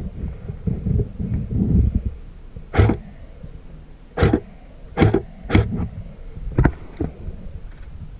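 Airsoft guns firing single shots: about six sharp cracks at irregular spacing over low rumbling movement noise.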